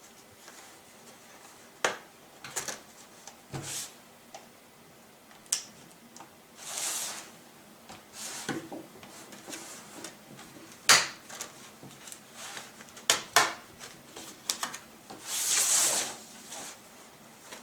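Scattered plastic clicks, snaps and taps of a laptop's bottom cover being pried loose and handled, with two longer scraping rasps, one about seven seconds in and one near the end.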